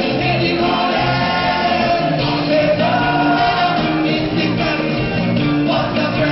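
Live band music with a male lead singer and backing singers.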